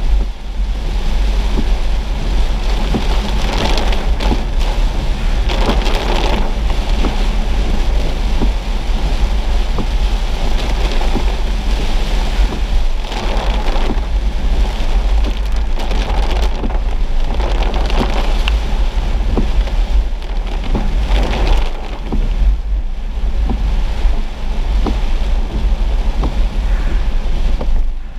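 Heavy rain pelting a moving car's windshield and roof, heard from inside the car, over a steady deep rumble of the car on the wet road. The hiss of the rain swells and eases every few seconds.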